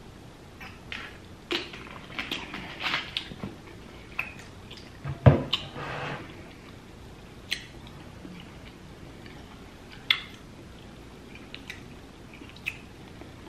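Gulps of water drunk from a plastic bottle, then a knock about five seconds in as the bottle is set down, the loudest sound here. A few scattered sharp clicks follow.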